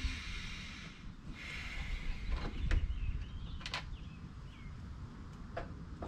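Scattered light clicks and small scrapes of a hand screwdriver working the Phillips screws out of the plastic headlight trim on an NA Mazda Miata, over a steady low rumble. Faint high chirps come in about three seconds in.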